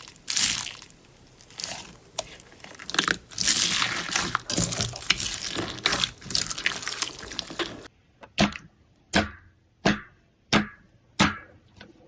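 Slime being pressed and worked close to the microphone, a dense wet crackling and crunching. About eight seconds in it cuts to five sharp, separate pops or snaps, evenly spaced less than a second apart.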